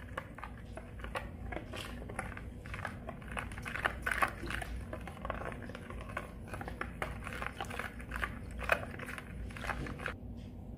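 A metal spoon stirring a milky mixture in a plastic bowl, scraping and tapping against the bowl's sides and bottom in an irregular run of small sounds.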